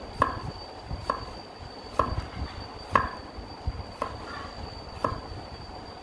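Broad-bladed kitchen knife slicing garlic cloves on a wooden cutting board, a sharp knock of the blade on the board about once a second, six strokes in all.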